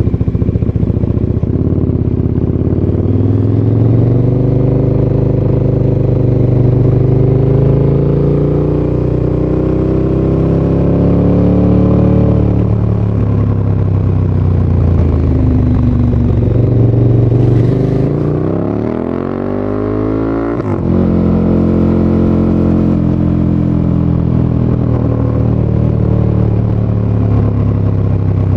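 2016 KTM 1290 Super Duke R's V-twin through an Akrapovic titanium slip-on and decat pipe, riding on the road. The revs climb slowly, then fall off. Near the end a quick rising rev ends in a sharp drop at a gear change, followed by steady running.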